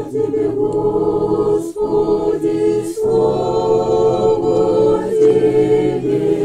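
A small group of men's and women's voices singing an Orthodox church chant together, unaccompanied, in long held notes. The singing breaks briefly twice, a little under two seconds in and again about three seconds in.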